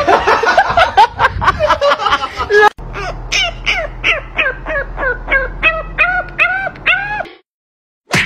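French bulldog puppy yelping in a quick run of short calls, each rising then falling in pitch, about four a second and growing longer toward the end before stopping. Before it, a busier stretch of overlapping short calls and clatter ends in a sudden cut.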